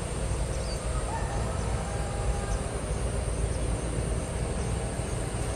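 A steady low rumble with no clear rhythm, with a few faint high chirps of birds over it.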